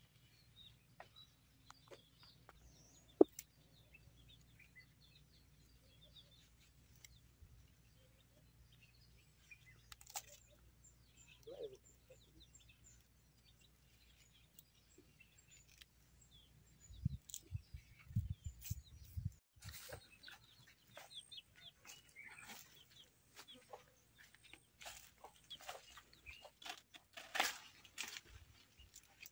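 Faint farmyard background of chickens clucking and small birds chirping, with scattered clicks and knocks. About two-thirds of the way in come a few low thumps, then denser rustling and clicking.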